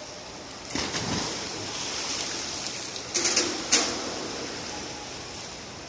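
A swimmer's racing dive hitting the pool water about a second in, followed by steady splashing and water noise, with two short, louder splashes a little past three seconds in.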